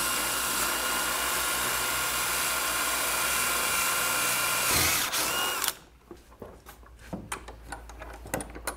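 Electric drill boring a hole through a wooden staging-horse crosspiece, its motor running at a steady pitch for about six seconds, dipping briefly near the end and then stopping. Small clicks and knocks of handling wood and tools follow.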